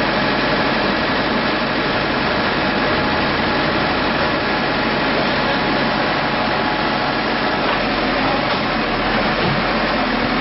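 Backhoe loader's engine running steadily while its arm works.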